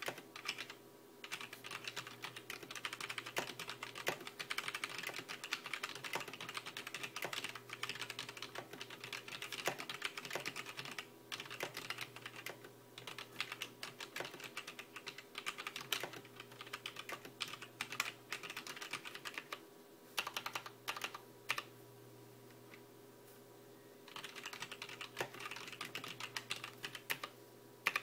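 Typing on a Zalman ZM-K500 mechanical keyboard with linear, red-style non-Cherry switches: a fast, irregular run of key clacks, with a couple of short pauses toward the end. A faint steady hum lies underneath.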